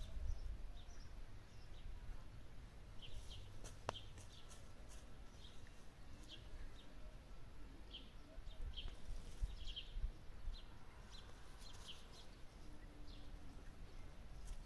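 Small birds chirping now and then in short, high chirps, over a faint low rumble.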